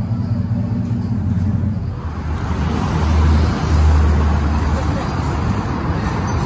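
A pickup truck's engine idles with a steady low drone through a Magnaflow bullet muffler. About two seconds in this gives way to steady outdoor noise, with a deeper low rumble from about three to five seconds.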